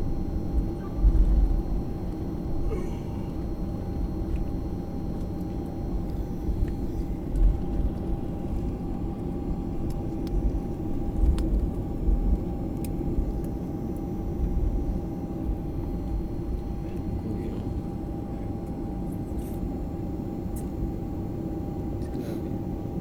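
Inside an airliner cabin: steady jet engine hum and low rumble as the aircraft rolls on the ground, with a few short low bumps from the wheels.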